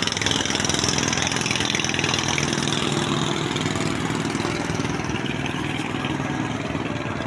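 Road traffic heard from a height: a steady engine drone over a wash of passing-vehicle noise, easing slightly toward the end.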